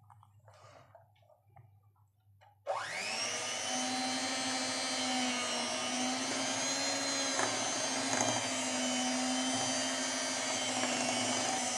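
Electric hand mixer switched on a few seconds in, its motor whining up to speed and then running steadily as the beaters whisk cake batter.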